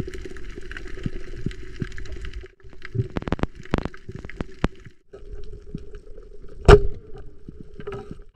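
Underwater sound through an action camera: a steady low hum with scattered clicks and crackles, and one very loud sharp crack about two-thirds of the way through as a speargun is fired and the spear strikes on the reef.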